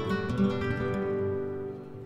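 Flamenco guitar played live: notes and a chord plucked near the start, then left ringing and slowly fading toward the end.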